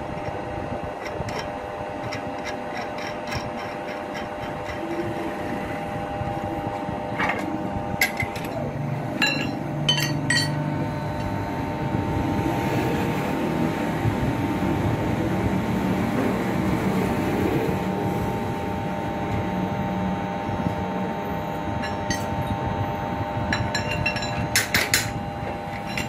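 Steady machine hum in a lathe shop, with sharp metal clinks and knocks as a steel stud and bar are handled in a lathe chuck. The clinks come in small clusters about eight to ten seconds in and again near the end.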